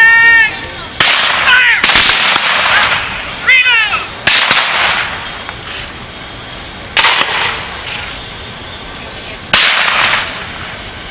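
Black-powder guns firing blank rounds in a reenactment skirmish: about five loud shots at irregular intervals, each fading away slowly. Loud, wavering cries come between the first few shots.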